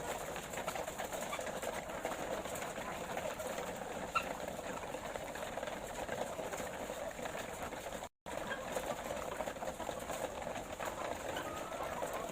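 A flock of laying hens clucking and murmuring continuously, many birds at once at a steady level. All sound cuts out briefly about eight seconds in.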